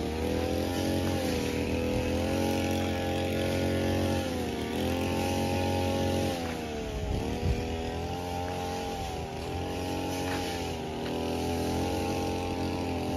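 A small petrol engine running steadily, its pitch dipping and picking up again several times as its speed changes under load.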